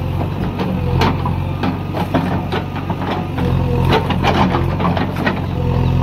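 JCB 3DX backhoe loader's diesel engine running steadily while the backhoe bucket digs at a tree stump. Repeated sharp cracks and crunches of roots and soil give way under the bucket.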